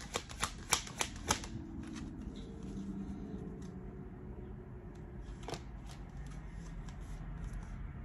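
A deck of divination cards being shuffled by hand: a quick run of crisp snapping clicks, about three to four a second, that stops about a second and a half in. Then only faint room hum, with a single soft tap about five and a half seconds in.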